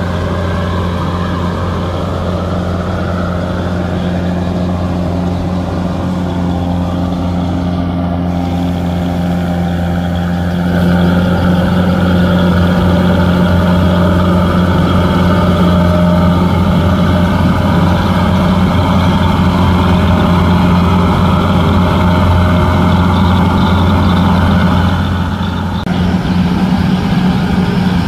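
Kubota DC-93 rice combine harvester's engine running steadily with a low hum, getting louder about eleven seconds in and dipping briefly near the end.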